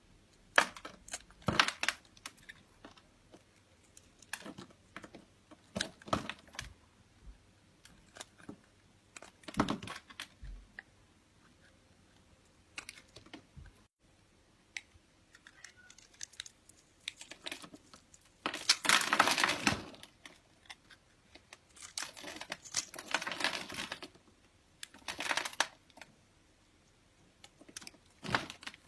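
Irregular light clicks and taps, with a few longer scraping or crinkling noises, the longest lasting about a second and a half.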